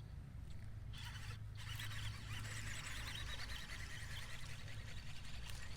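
Fishing reel being cranked to bring in a small fish: a faint, fine whir that starts about a second in, over a low steady hum.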